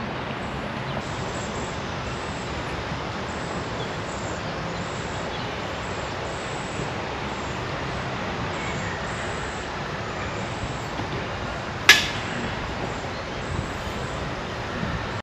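Steady rushing outdoor background noise, with a single sharp knock about twelve seconds in.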